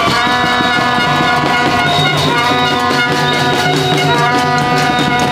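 A din of protest noisemakers: many horn-like tones at different pitches held together, with a few brief pitch glides and a steady rapid clatter underneath.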